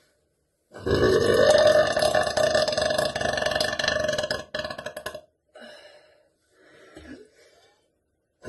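A woman's long, loud burp lasting about four seconds, its pitch rising at the start and then held. Two short faint sounds follow, and another loud burp begins right at the end.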